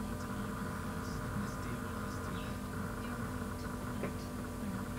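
Steady electrical hum with a faint background hiss: the room tone of a desk recording setup.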